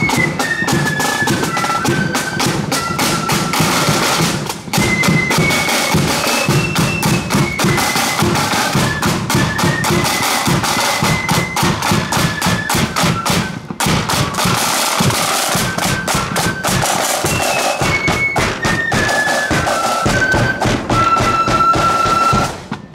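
Marching flute band playing a tune: shrill flutes carry a stepping melody over rapid side-drum strokes and a bass drum beat.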